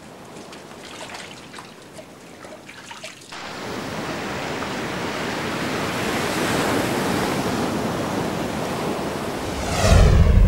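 Shower water trickling and dripping. About three seconds in it cuts suddenly to the steady rush of sea waves and churning surf. Near the end a loud low boom comes in.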